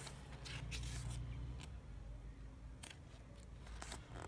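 A few light clicks and rustles of album packaging being handled, spaced about a second apart, over a steady low hum.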